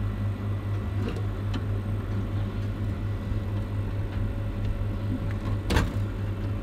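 Steady low electrical hum from an ice maker's water-inlet solenoid valve energized at 230 volts through a test jumper, with a few light ticks and one louder knock near the end. No water flows through the valve, which the owner takes as a sign that the solenoid is bad.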